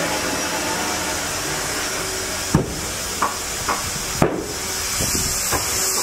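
Steady running noise of an electric band sawmill, with a string of about six sharp wooden knocks in the middle stretch as a squared log and its slabs are shifted on the steel log bed.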